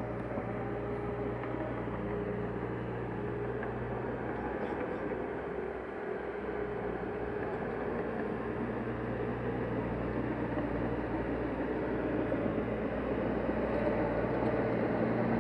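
Heavy diesel construction machinery running steadily, with a continuous engine drone that grows louder toward the end.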